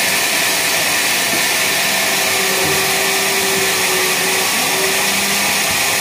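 Sawmill machinery running steadily with an even, high hiss while a log is set on the carriage, before a cut begins.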